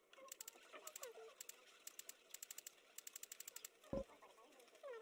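Rapid clicks, some in quick runs, as betting chips are placed on an online roulette table. About four seconds in, a short dull tone sounds as betting closes.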